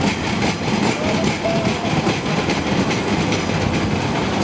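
Class 142 Pacer, a four-wheeled two-car diesel railbus, running slowly past with its diesel engine and its wheels knocking over the rail joints at an even pace. A faint brief wheel squeal comes about a second in.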